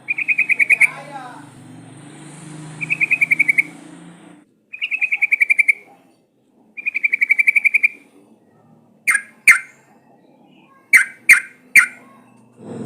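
Yellow-vented bulbul (trucukan) singing: four rapid trilled phrases of about a second each, then five short, sharp call notes in the second half.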